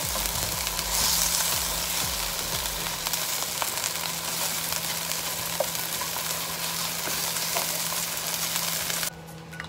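Chicken pieces sizzling as they fry in oil in a nonstick wok, with light taps and scrapes as a spatula stirs them. The steady sizzle cuts off suddenly a little before the end.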